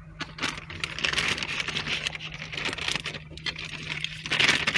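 Irregular rustling and light clicking as a part and its packaging are handled, over a steady low hum.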